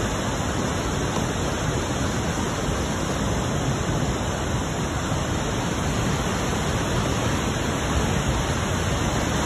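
Flooded creek water pouring over the broken edge of a paved road in a steady rushing cascade, washing out the roadbed beneath the cracked asphalt.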